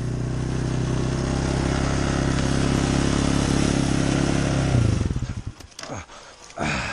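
Small dirt bike engine running at a steady speed while the bike lies on its side after a crash, then winding down and dying about five seconds in. A few clicks and rustles follow.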